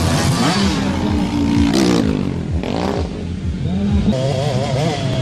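Motocross bikes revving hard as they race past on a dirt track, the engine pitch rising and falling with the throttle. Two bikes pass close by about two and three seconds in.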